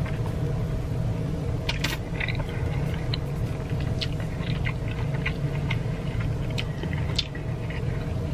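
Close-miked eating of a sauce-dipped king crab leg: scattered wet clicks and smacks of sucking and chewing the crab meat, over a steady low hum.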